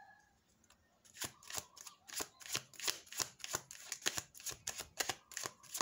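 Deck of tarot cards being shuffled overhand, small packets dropping from hand to hand in quick soft clicks, about four a second, starting about a second in.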